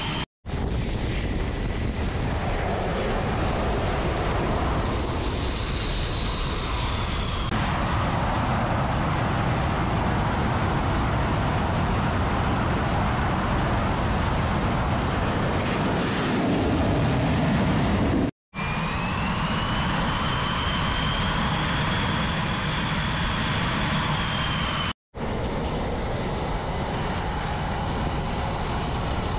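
F/A-18 Super Hornet jet engines running at high power on a carrier's catapults: a loud, steady roar with a high turbine whine that glides up and down. The roar swells deeper shortly before the middle break, as a jet goes to full power for launch. The sound breaks off abruptly three times.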